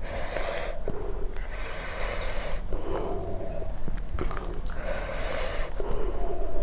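A person breathing hard in and out through the mouth, several long hissing breaths, typical of someone cooling a mouth burning from very chilli-hot food while eating.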